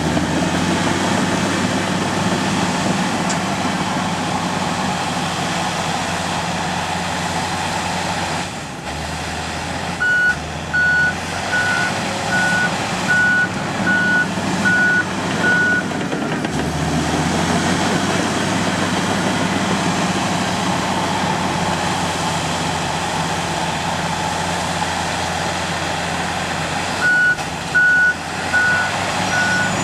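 Komatsu D85 bulldozer's diesel engine running under load, its note shifting several times as it works. Its reversing alarm beeps steadily from about ten seconds in for several seconds, and starts again near the end: the dozer is backing up.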